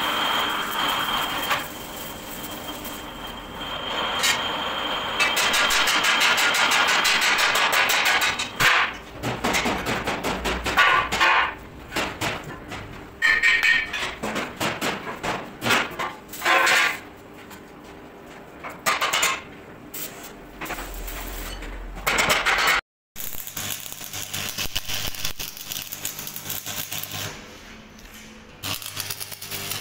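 Metalworking workshop noise: an electric plate-rolling machine bending a steel sheet, run in short starts and stops, with the crackle of arc welding and clanks of sheet steel. The sound changes abruptly several times as the footage is cut together.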